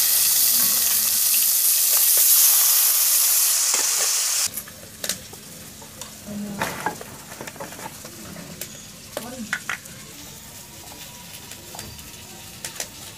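Pieces of rohu fish sizzling loudly as they fry in a kadai and are turned with a spatula. The sizzle cuts off abruptly about four and a half seconds in. After that come a few light clicks and taps as onion, garlic and spices are dropped into a steel mixer-grinder jar.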